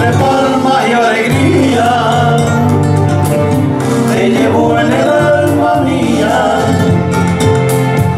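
Two men singing a Spanish song as a duet into microphones, over backing music with a steady bass line.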